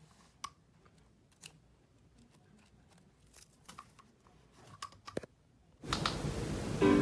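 Scattered faint clicks and taps of small plastic objects, a pencil sharpener and an inhaler, being handled and moved on carpet. About six seconds in, loud music cuts in suddenly.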